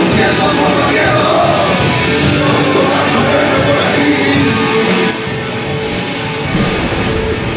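Rock music with a singing voice, loud and continuous, dropping slightly in level about five seconds in.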